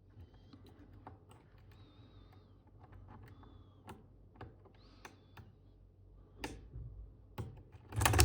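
Lock pick working the pin stack of a Mul-T-Lock euro cylinder with spool pins: faint metallic clicks and light scraping, with a louder clatter near the end.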